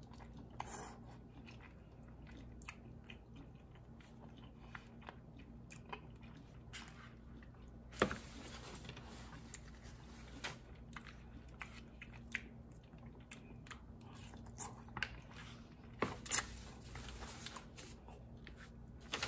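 A person chewing and biting on dim sum chicken feet: faint, scattered small clicks of teeth and bone, with two louder clicks about eight and sixteen seconds in.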